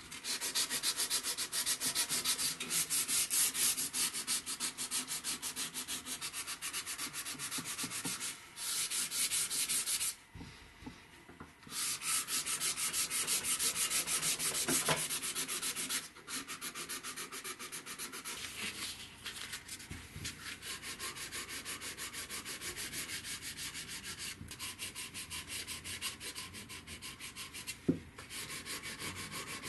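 Sandpaper wrapped around a small stick rubbed back and forth in quick, short strokes along a wooden flintlock pistol stock. The strokes pause briefly about ten seconds in, and there is a single knock near the end.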